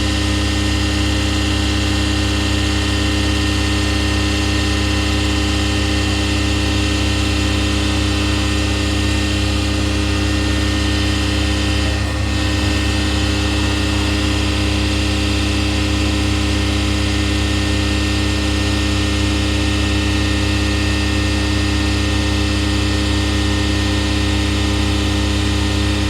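Airliner jet engines running steadily at idle: a loud, unchanging hum with several steady whining tones.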